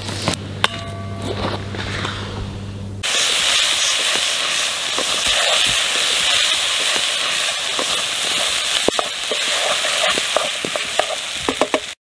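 Rice and toasted orzo sizzling as they fry in fat in a pan over a campfire, stirred with a wooden spoon, a pilaf being toasted before its liquid goes in. The sizzling starts abruptly about three seconds in, after a low steady hum, and has scattered clicks near the end.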